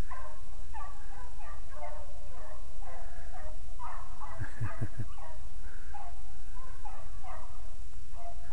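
A pack of beagles baying on a rabbit's track, many voices overlapping in a continuous chorus of calls, over a steady low rumble.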